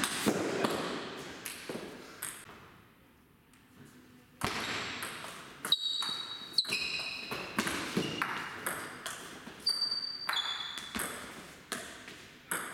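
Table tennis rally: the ball clicks off paddles and table in quick succession, with short ringing echoes. The hits stop for about two seconds early on, then the back-and-forth picks up again and runs on until near the end.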